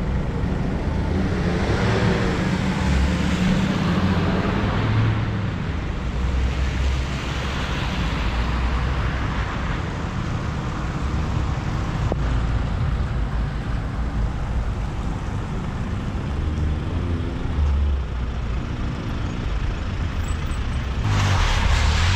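Off-road 4x4s driving past one after another on a wet road: engines running and tyres hissing through standing water, with the engine notes rising and falling as each goes by. Near the end a Can-Am side-by-side buggy passes close and is louder.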